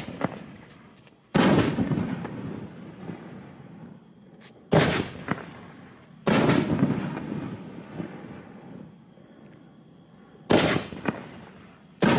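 5-inch consumer artillery shells fired one at a time from a mortar tube. Each launches with a sharp thump and bursts in the air about a second and a half later with a loud bang that rumbles away over several seconds. Three bursts, about a second in, about halfway and right at the end, with the launches of the next two shells between them.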